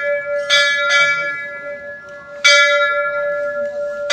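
Hindu temple bell struck three times, about two seconds apart, each strike ringing on in a long hum that carries over into the next.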